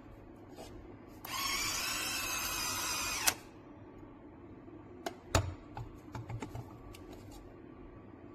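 Small electric motor of a ThermoMaven electric salt and pepper grinder running for about two seconds, starting about a second in and ending in a click. This is followed by a few light clicks and knocks.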